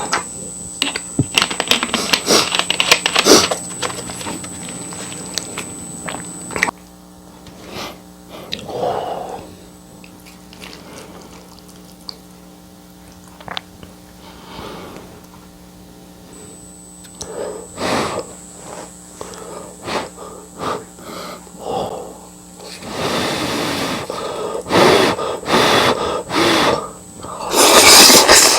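A person eating spicy noodles and pig's trotters close to the microphone: irregular chewing, smacking and clicking mouth sounds with short pauses, and longer slurping and breathing noises near the end.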